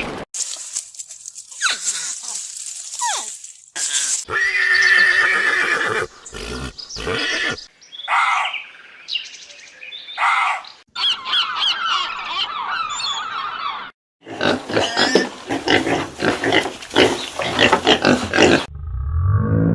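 A rapid sequence of different animal calls spliced together, each cutting off abruptly into the next.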